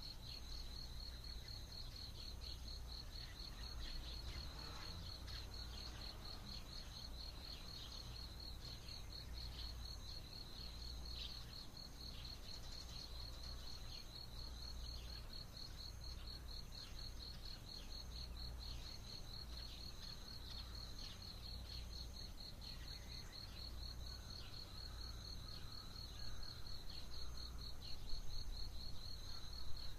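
Dawn insect chorus: a steady high-pitched insect trill in fast, even pulses, with scattered short bird chirps and calls over a low background rumble. It gets a little louder and more uneven near the end.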